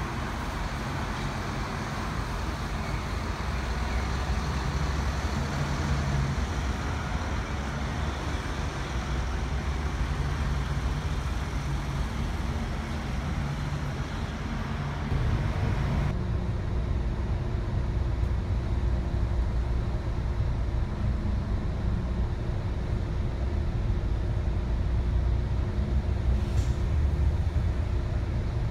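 Diesel bus engines running and pulling away, with traffic noise. About halfway through it cuts to the steady low drone of a bus heard from inside while riding.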